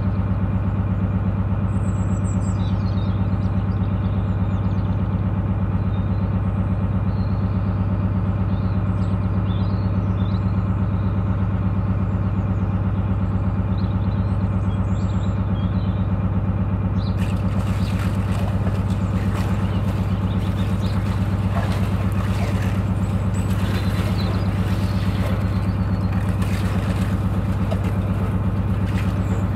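Narrowboat engine running steadily while cruising. A little past halfway, thin ice starts crackling and crunching as the hull breaks through it, and this stops near the end.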